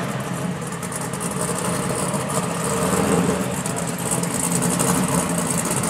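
Camaro IROC's swapped LS1 V8, with a Comp cam and Stainless Works headers, idling steadily as the car backs slowly in reverse.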